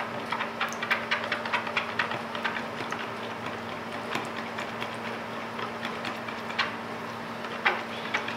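Wire whisk clicking against the sides of a plastic mixing bowl while beating egg yolks with coconut milk and condensed milk into a liquid topping: several quick taps a second, thinning out after about three seconds.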